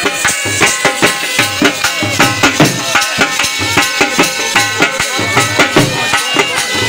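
Live folk dance music: dhol drums beaten with sticks in a fast, even rhythm, with a sustained melody line playing over the drumming.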